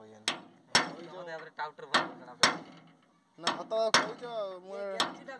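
Sharp metal-on-metal hammer blows on a tractor trolley's wheel hub, struck through a bar or tool during a wheel bearing change. There are about seven irregularly spaced strikes, each ringing briefly, with a pause of about a second and a half past the middle.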